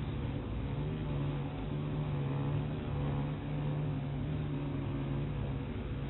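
Honeybee colony buzzing on the comb: a steady, even hum.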